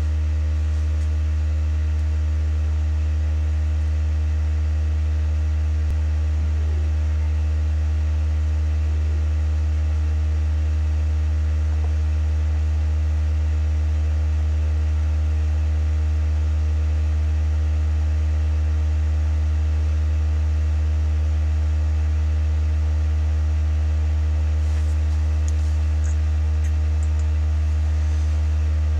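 Vibration shaker driving the silicone-oil bath of a walking-droplet experiment, giving a steady low hum with fainter higher overtones.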